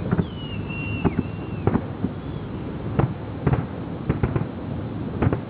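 Fireworks going off: about a dozen sharp bangs and cracks at irregular intervals, some in quick pairs and triples, with a high whistle gliding downward over the first second and a half.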